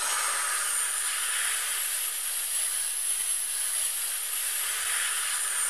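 Steady, even hiss of noise with no rhythm or pitch.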